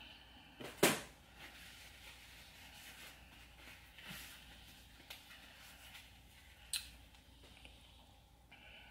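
Close-up eating sounds of fried chicken: a sharp crunch about a second in, a smaller one near five seconds and another near seven, with quiet chewing between.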